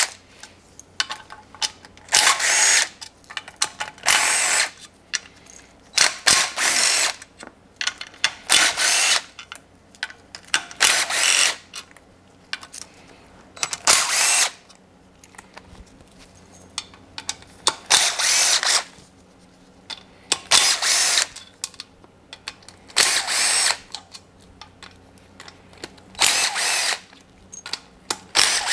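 A cordless power tool spinning out the oil pan bolts of a Honda J30A4 V6 block one after another: about a dozen short whirring runs, each under a second and two to three seconds apart, with light clicks between them.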